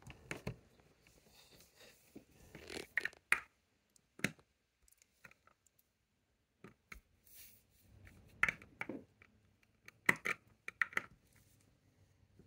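Small plastic Lego pieces being handled and pressed together, giving scattered clicks and short scrapes in a few brief clusters.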